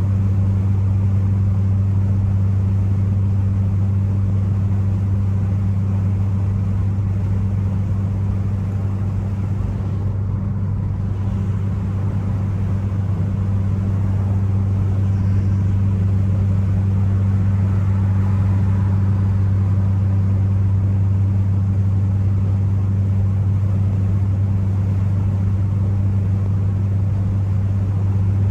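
Ford Focus ST cruising at a steady engine speed: a constant low engine and exhaust drone with road noise under it, with no revving or change in pitch.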